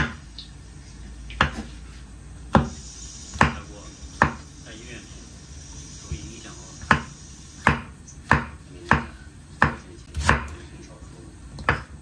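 Chef's knife slicing button mushrooms on a wooden cutting board: about a dozen separate knocks of the blade striking the board, roughly a second apart, with a pause of a couple of seconds in the middle.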